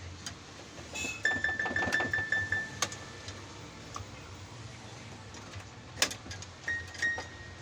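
Yamaha PSR-E443 electronic keyboard sounding short, high notes as keys are pressed to test them. One note is played quickly about eight times a second or so in, then two more notes near the end, with clicks of the keys and handling. This is a check for keys that freeze or fail to sound.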